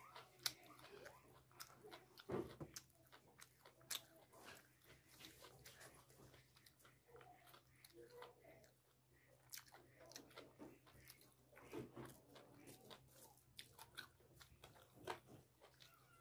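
Faint close-up eating sounds: a man chewing rice and chicken curry eaten by hand, with irregular wet clicks and smacks of the mouth, over a steady low hum.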